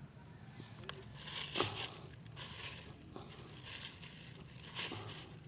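Irregular rustling and crinkling, strongest about a second and a half in and again near the end.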